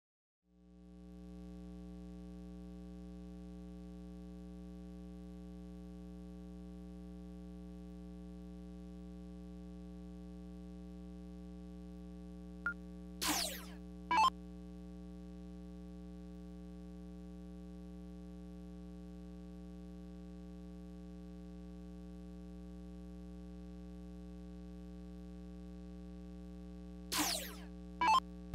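Steady electrical mains hum, a low buzz with a stack of overtones, fading in about half a second in. A few brief falling electronic chirps come near the middle and again near the end.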